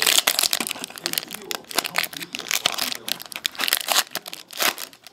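Foil trading-card pack wrapper crinkling and crackling as it is handled and opened, in a dense run of short, irregular crackles.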